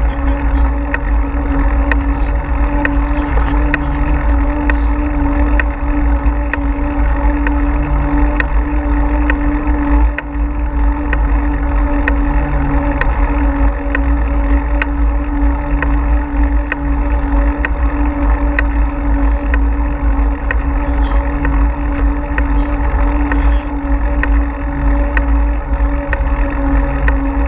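Wind buffeting the microphone of a GoPro on a moving bicycle, with a steady hum and frequent light ticks and rattles from the bike rolling over pavement.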